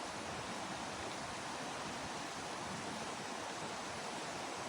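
Steady rushing of flowing stream water, an even hiss with no change in level.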